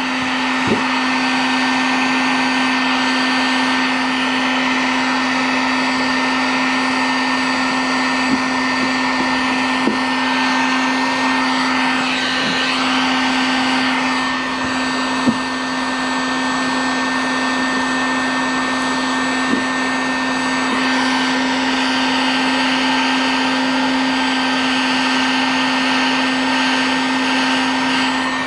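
Harbor Freight electric heat gun running steadily, its fan giving a constant hum and hiss, as it melts polyethylene plastic to weld a patch onto a plastic kayak hull. A few faint ticks sound over it.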